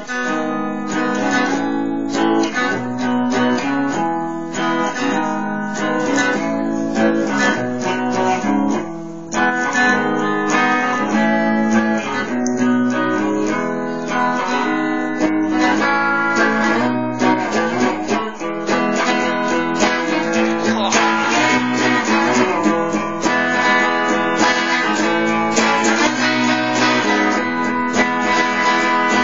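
Acoustic guitar playing a tune, note after note without a break.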